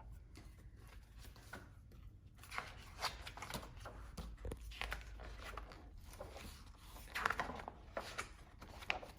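Faint rustling and scattered light clicks of a picture book being handled, its paper pages moved and turned.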